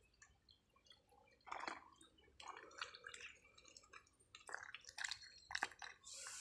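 Ducks dabbling and feeding with their bills in shallow water and mud: faint, irregular wet clicks, drips and small splashes, with a brief louder splash near the end.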